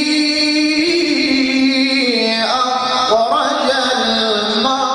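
A man's voice in melodic Quran recitation in maqam Nahawand: long held notes that step between pitches, with an ornamented rising run about halfway through.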